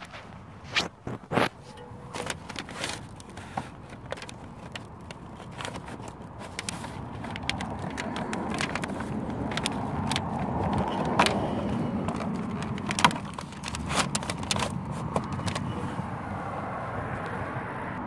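Scattered sharp clicks and scrapes of handling, over outdoor background noise that swells through the middle and eases again toward the end.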